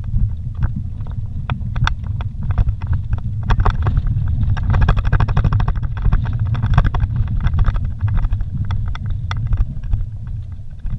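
A vehicle driving over a rough dirt road, heard from inside the cabin: a steady low rumble from the engine and tyres, with frequent small clicks and knocks as it rides over stones and bumps. The road noise grows rougher for a few seconds around the middle.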